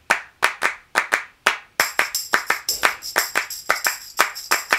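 Opening of an intro music track: a rhythmic pattern of sharp hand claps, joined about two seconds in by bright sustained high tones.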